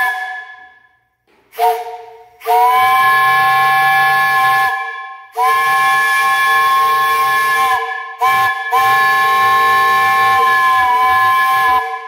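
A 3-inch, three-chime Powell steam whistle blown on live steam, sounding a steady chord: a short toot, then three long blasts with a brief toot between the second and third.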